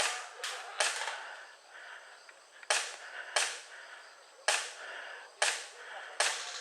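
Airsoft guns firing single shots: about eight sharp, snappy cracks at irregular intervals, some less than half a second apart, each with a short fading tail.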